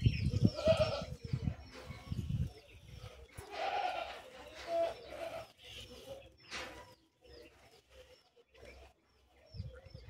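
Farm animals bleating, once near the start and again around four to five seconds in, over short high bird chirps that repeat every half second or so. Low microphone rumble in the first couple of seconds.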